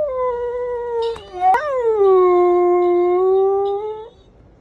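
A dog howling: a falling howl that trails off about a second in, then a second, longer howl that swoops up sharply, sinks and holds a steady pitch before stopping about four seconds in.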